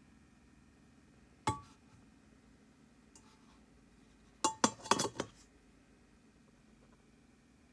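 Stainless-steel tea kettle and its lid clinking as they are handled: one sharp clink with a short ring about a second and a half in, then a quick run of four or five clinks a few seconds later.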